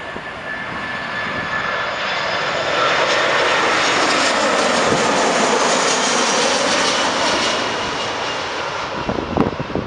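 Airbus A320-200 jet airliner on final approach passing low overhead: the engine noise and whine swell to a peak midway, the whine drops in pitch as it passes, then the sound fades. Wind gusts on the microphone near the end.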